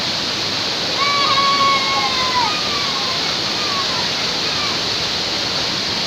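A waterfall pouring steadily onto a rocky stream bed, a constant rushing hiss of water.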